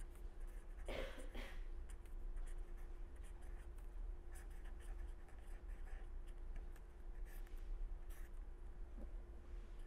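Pen scratching across paper in short strokes as equations are written out, over a faint steady hum.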